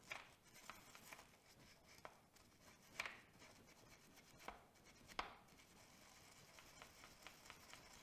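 Faint scrubbing of a small brass wire brush on the metal around a dirt bike's rear brake pedal pivot, working caked dirt out of the threads. Short scrapes stand out about three and five seconds in.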